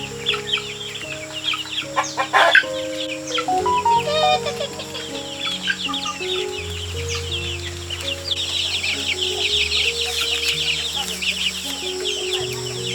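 Chickens clucking and small birds chirping over soft background music of slow, held notes; the chirping grows dense about two-thirds of the way through.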